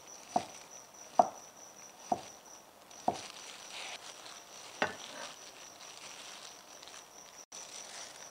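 A cleaver slicing cucumber on a round wooden chopping block: five sharp knocks of the blade hitting the wood, spaced about a second apart over the first five seconds. Under them runs a faint steady high-pitched tone.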